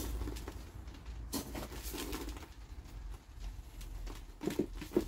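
Moler clay granules scooped with a metal trowel into a plastic mesh chip basket and shaken over a bucket to sieve out the fines: gritty rattling and trickling, with a sharp clatter about a second and a half in. A few short low sounds come near the end.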